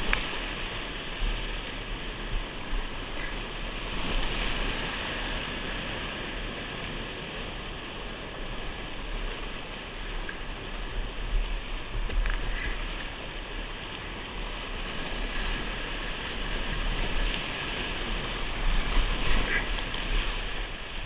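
Whitewater rapids rushing steadily around a kayak, with a few brief louder splashes as the paddle strokes, and wind buffeting the camera's microphone.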